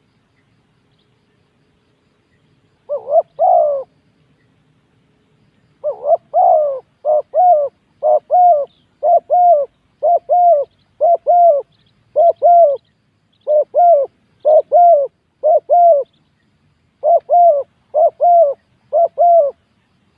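Spotted dove cooing. Two short coos come about three seconds in, then from about six seconds a long run of quick coos, roughly one and a half a second, broken by brief pauses.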